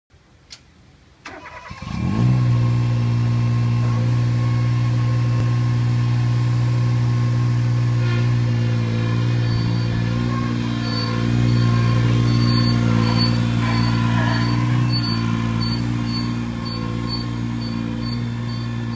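Engine of a Powerboss ride-on industrial sweeper cranking and catching about two seconds in, then running steadily as the machine drives off, a little louder from about twelve seconds in. A short high beep repeats about twice a second from about ten seconds in.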